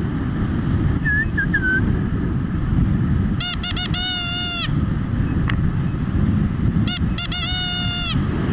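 A horn sounding twice, about three seconds apart: each time a few quick toots running into a held note, over a steady low rumble of wind and riding.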